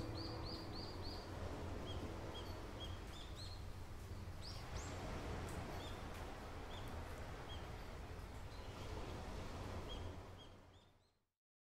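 Steady rain falling, with a small bird chirping repeatedly over it. The sound fades out near the end.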